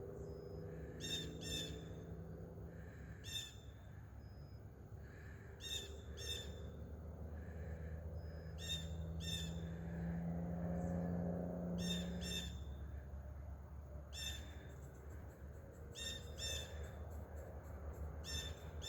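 Birds giving short, sharp chip calls, mostly in quick pairs, repeating every second or two; the walker takes the birds for northern cardinals. A faint low hum runs underneath and swells briefly about ten seconds in.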